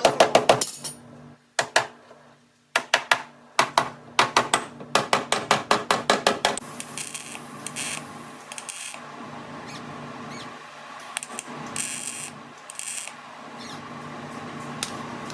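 Rapid runs of sharp hammer taps on sheet-metal body panel, about five or six a second, typical of panel beating a dent out. About six seconds in they give way to a steady rubbing or scraping, as with sanding or filing the repaired metal, with two louder hissy stretches.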